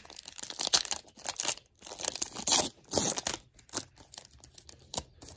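Plastic wrapper of a Panini Prizm trading-card pack being torn open and crinkled by hand: a dense run of irregular crackles and rips that thins to a few single crinkles after about three and a half seconds.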